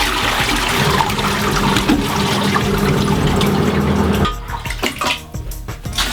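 Toilet flushing into a Saniflo macerator: rushing water over a steady pump-motor hum, both cutting off abruptly about four seconds in, followed by a few small clicks.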